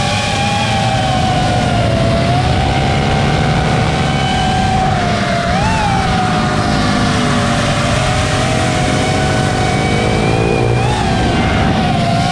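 FPV racing quadcopter's brushless motors and propellers whining at a steady pitch, jumping up briefly twice with throttle punches, over a low rumble. Fainter rising engine notes come in near the middle, likely the small-engine bikes on track.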